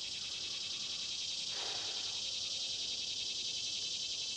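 Steady high-pitched chorus of crickets, a fast even trill. About a second and a half in there is a short breathy exhale, as from the strain of a squat.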